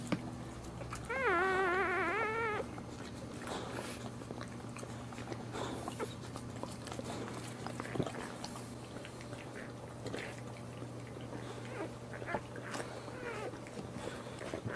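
A newborn boxer puppy gives one wavering, high-pitched cry lasting about a second and a half, starting about a second in. Otherwise there is only faint rustling and small clicks over a steady low hum.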